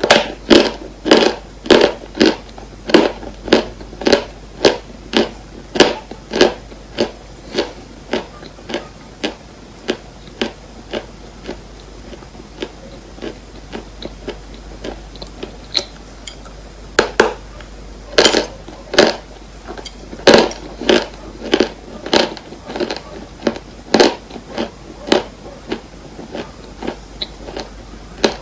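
Dry chalk crunching in a steady run of sharp crunches, about two a second. The crunches grow fainter for a while after the first several seconds, then loud again.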